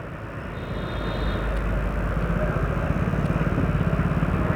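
Motorbike engine running while riding, with road and wind noise; it grows steadily louder as the bike picks up speed.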